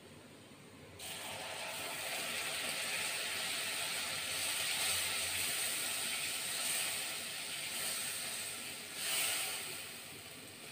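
Wet spice paste (garlic, ginger, onion, cumin, garam masala and red chilli mixed with water) hitting hot oil and fried onions in a pot, sizzling. The sizzle starts suddenly about a second in and eases a little near the end.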